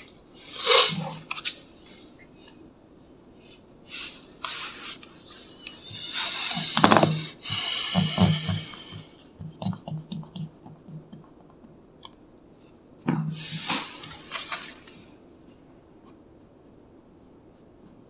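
Pencil and eraser working on drawing paper: several bursts of scratchy rubbing, the loudest about seven seconds in, followed by quick repeated strokes.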